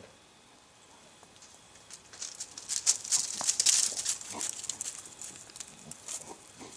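Dry grass rustling and crackling under a dog rolling on her back, in a busy burst of scratchy crackles about two seconds in that fades to scattered rustles.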